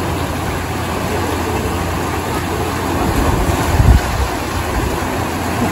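Water-slide outlets gushing water into a pool, a steady rushing noise with a strong low rumble; a child splashes down into the pool a little before four seconds in.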